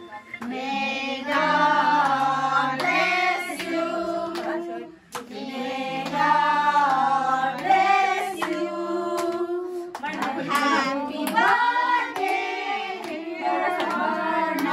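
A group of voices singing a birthday song together, with hand clapping in time.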